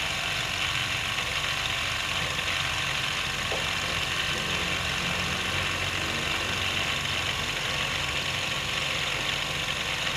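Steady background hum with a hiss above it, unchanging, like a running machine.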